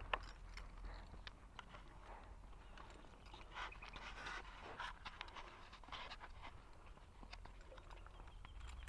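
Horses grazing at close range: faint, irregular crunching and tearing as they crop and chew grass, with soft breaths between.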